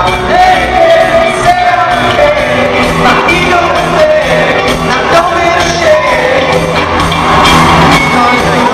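Live band playing: a male lead singer's voice over electric bass, drums and guitar, amplified through a concert PA and heard from among the audience.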